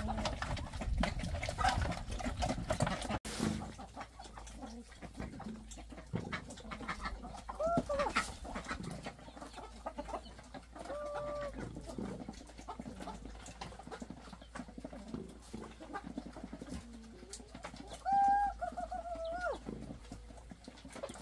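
Chickens calling: a few separate clucks and squawks, and a longer drawn-out call near the end. In the first few seconds there are scraping and knocking noises.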